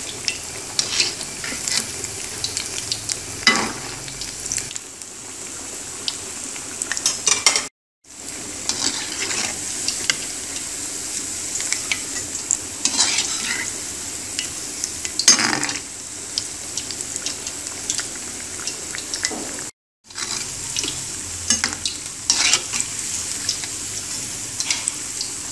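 Beef pakora kebabs deep-frying in hot oil, a steady sizzle, with clicks and scrapes of a perforated metal spatula turning them against the pan. The sound breaks off briefly twice.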